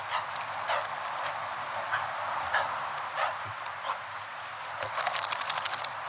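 Footsteps on a dirt path, a soft knock about every 0.6 s. Near the end comes a loud second-long burst of fast rattling.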